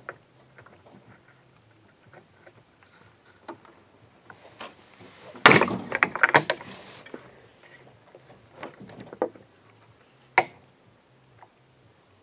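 Bench-mounted chainsaw chain breaker punching a rivet out of a saw chain. There is a loud cluster of sharp metal clicks and rattles about five and a half seconds in, then a single sharp click about ten seconds in, with light clicking of the steel chain links being set on the anvil in between.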